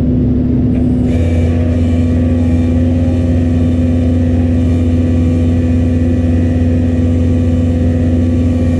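Tow truck running while its hydraulics lower the towed van. About a second in, a deeper steady hum and a higher whine set in over the engine's steady tone and hold.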